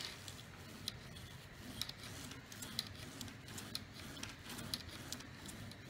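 Model railway wagon's metal wheels rolled back and forth by hand over a spirit-soaked paper towel on the track: a faint rubbing with light clicks about once a second, as the wheels are scrubbed clean.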